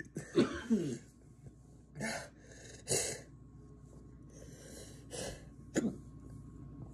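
A person coughing and breathing hard in short, noisy bursts, the reaction to a burning mouth from a dab of very hot Mad Dog hot sauce. A sharp click comes near the end.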